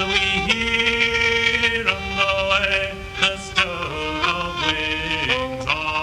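Slow traditional Irish music: a fiddle holding long notes that step from one pitch to the next over a lower sustained note.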